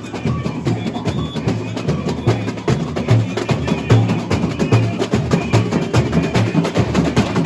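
Samba school bateria playing samba: deep surdo bass drums beat about twice a second under a dense rattle of snare drums and sharp high percussion strokes.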